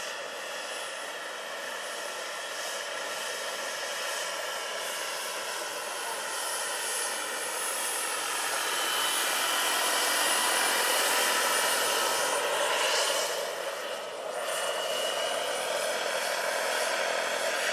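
Turbine engine of a large radio-controlled EC-120 B Colibri scale model helicopter in flight, whining with a high steady tone over rotor noise. The sound grows louder toward the middle, drops briefly about fourteen seconds in, then rises again.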